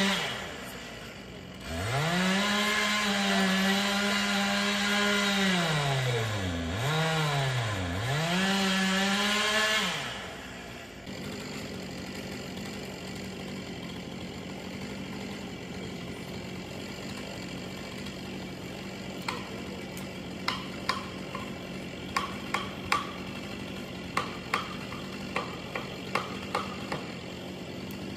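Two-stroke chainsaw cutting into an oak: it revs up to full throttle about two seconds in and holds a high, steady pitch under load with two brief dips. About ten seconds in it drops back to a low, steady idle. In the last third, sharp knocks sound over the idling saw, one or two a second.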